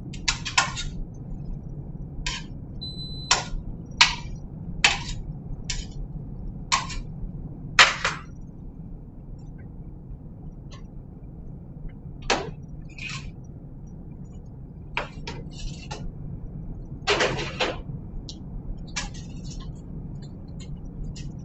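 Metal tongs clacking against a metal sheet pan as halved squash are flipped. A quick run of sharp clacks fills the first eight seconds, then a few scattered kitchen clatters follow, all over a steady low hum.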